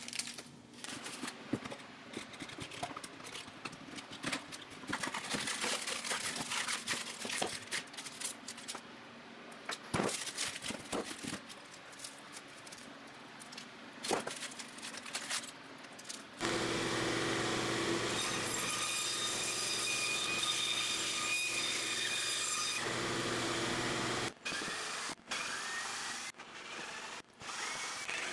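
Aluminium foil crinkling, with clicks and clatter from hand tools and clamps as a clamped resin mold is taken apart. Past the middle, a power tool runs steadily for about six seconds. After that, a cordless drill runs in short bursts, backing screws out of the wooden form.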